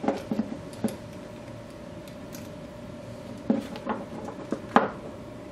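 Small metallic clicks and taps of fingers fitting a screw and clamp onto a motorized-bicycle carburetor. They come in two clusters, one at the start and one about three and a half to five seconds in.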